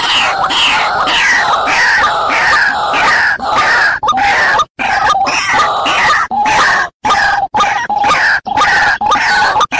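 White-breasted waterhen (ruak-ruak) calling: a steady series of repeated calls, about two a second, each falling in pitch, with a couple of brief breaks where the sound cuts out.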